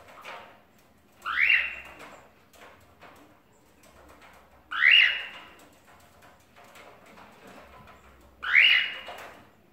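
Cockatiel giving three loud calls, about three and a half seconds apart, each sliding upward and held briefly at the top. The owner takes this calling for the bird wanting out of its cage.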